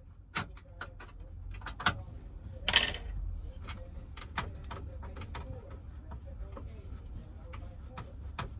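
Screwdriver turning out the T25 Torx screws that hold a car stereo in the dashboard: a run of small, irregular clicks and ticks, with a brief louder scraping rattle about three seconds in.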